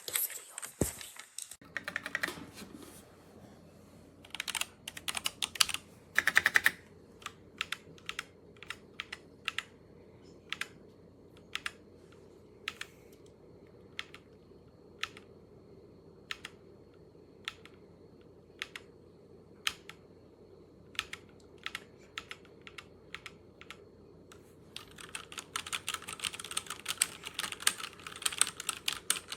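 Keystrokes on a MageGee 75% mechanical keyboard with red linear switches. First come a few quick bursts of key presses, then single keystrokes about once a second, then fast continuous typing near the end.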